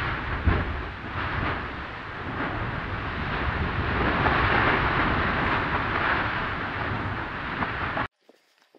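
Erupting lava fountains of the Fagradalsfjall fissure eruption: a loud, continuous rushing rumble with irregular thuds. It stops abruptly about eight seconds in.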